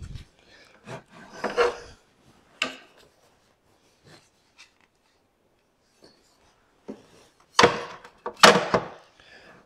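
A steel ball-bearing drawer slide rubbed and scraped against the wooden side of a cabinet case as it is handled into position. There are a few short scrapes, a sharp click about two and a half seconds in, then two louder scrapes near the end.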